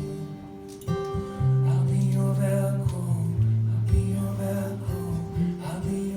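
Live song instrumental passage: strummed guitar chords over sustained low notes, with no singing.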